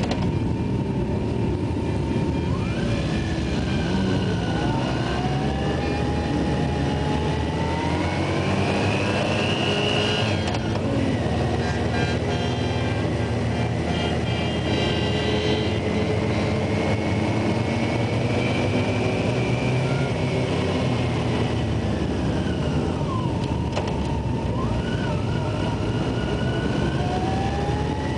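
Yamaha FJR1300 inline-four motorcycle engine under way at speed: its pitch climbs for about ten seconds, drops sharply at an upshift, holds steady, falls as the bike slows about two thirds through, then climbs again near the end. A steady rush of wind noise runs underneath.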